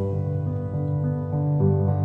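Soft instrumental background music with sustained notes that change every half second or so.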